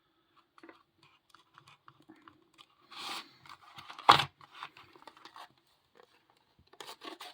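Padlock retail packaging being handled and torn open: scattered crackling and crinkling, a rustle about three seconds in, and one loud sharp crack a little after four seconds.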